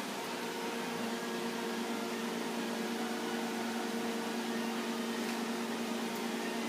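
Steady mechanical hum from a running household appliance: a few steady tones over an even hiss.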